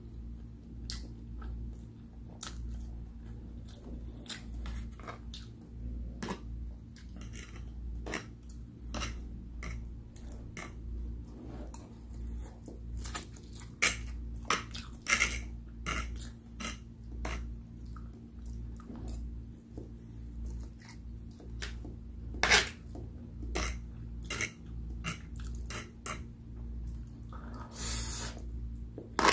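Close-miked eating: chewing instant noodles, with a fork clinking and scraping on the plate and scattered sharp clicks, the loudest about twenty-two seconds in. A steady low hum runs underneath.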